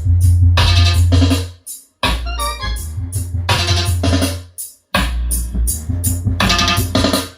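Electronic music with heavy bass, keyboards and drums played through an IMG Stageline PAB-10MK2 loudspeaker in a sound test. It comes in phrases of two to three seconds, each broken off by a brief gap.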